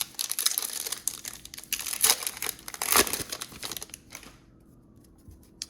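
Plastic wrapper of a trading card pack being torn open and crinkled, with several sharper crackles along the way; the crinkling stops about four seconds in, and a single click follows near the end.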